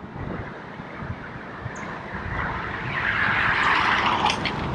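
A car passing close by, its tyre and road noise swelling to a peak near the end and then dropping away, over wind rushing on the microphone.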